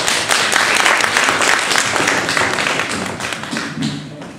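Audience applauding, dense and steady at first, then thinning and fading toward the end.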